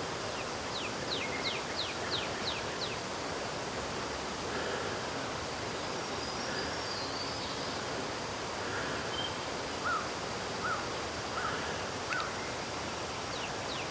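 Outdoor rural ambience with a steady hiss and birds calling. A quick run of about seven high chirps comes in the first few seconds, and a few short, lower chirps come later.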